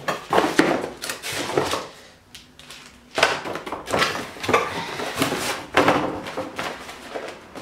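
Cardboard box being handled and opened by hand: irregular scraping and rustling of the cardboard flaps, with a few knocks.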